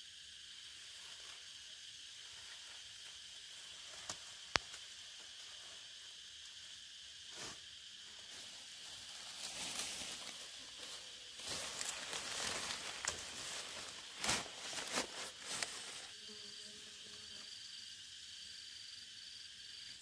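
A steady, high insect hiss, with bursts of leaf rustling from about halfway in as picked leafy vines are handled and dropped into a woven bamboo basket. There is a single sharp click a few seconds in.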